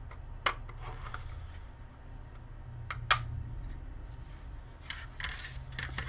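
Hard 3D-printed plastic parts being pushed together and handled: a few sharp clicks, the loudest about three seconds in, and rubbing and scraping of plastic on plastic near the end, over a steady low hum.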